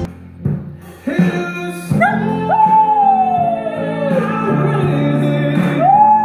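Miniature schnauzer howling along to a pop ballad playing in the background: two long howls, each sliding slowly down in pitch, the first about two seconds in and the second near the end.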